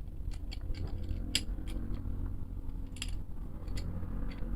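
Scattered light metal clicks and taps of bicycle tools being handled, as a half-inch drive adapter is fitted into a lockring tool, with two sharper clicks about a second and a half and three seconds in. A low steady hum underneath.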